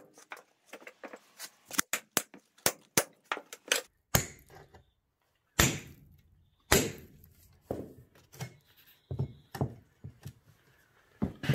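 Hammer blows on a steel angle-iron wedge driven between an old tractor tyre's bead and its rusty rim to break the bead loose. Quick light knocks come for the first few seconds, then three heavy blows with a deep thud about four, five and a half and nearly seven seconds in, then scattered lighter knocks.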